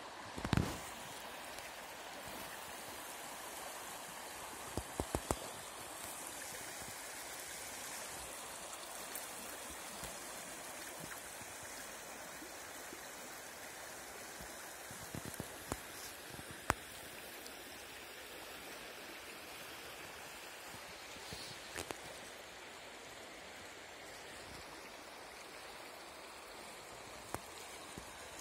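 Shallow mountain river running fast over stones, a steady rush of water. A few brief knocks stand out now and then, the loudest about half a second in.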